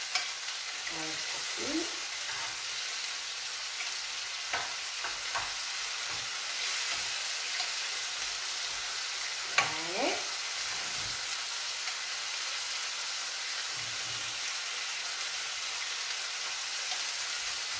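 Artichoke pieces sizzling steadily in a frying pan on the stove, with a few sharp clicks of a utensil or glass against the pan, the loudest about ten seconds in.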